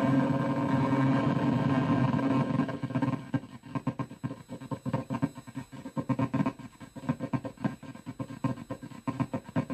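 Circuit-bent Pikachu plush toy's sound circuit played through an amplifier: a dense, steady electronic drone that about three seconds in breaks into a fast, irregular stutter of glitchy pulses.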